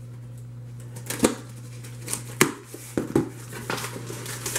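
Cardboard box being opened by hand: several sharp knocks and scrapes of cardboard as the lid is pulled up and folded back.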